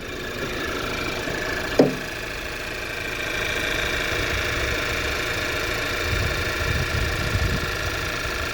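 2013 Volkswagen Tiguan's 2.0-litre turbocharged four-cylinder petrol engine (CCZ) idling steadily and sounding healthy. There is a single sharp click about two seconds in, and the engine gets a little louder from about three seconds in.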